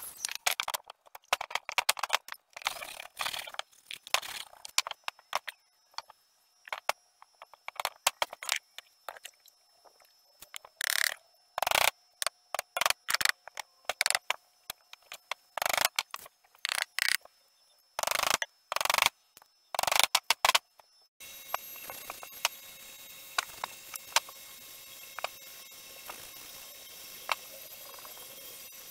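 Irregular sharp clicks, knocks and scrapes of hand tools, pliers among them, working old reclaimed boards, with near silence between the strokes. About two-thirds of the way in the sound changes abruptly to a faint steady hum with light ticks and scrapes.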